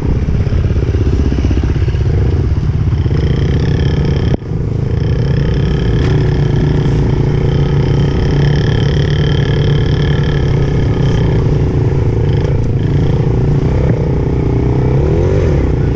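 Dirt bike engine running steadily, with a short dip about four seconds in and the revs rising and falling near the end.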